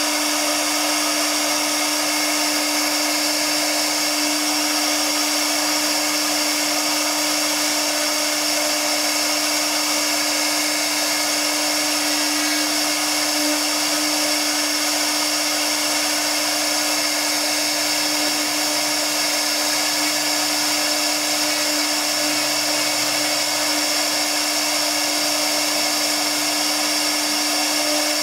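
Spindle of a Tiptop 1325 CNC router running at a constant speed while its carving bit cuts relief patterns into MDF board. It is a steady machine whine with a low hum under it and an even cutting hiss, unchanging throughout.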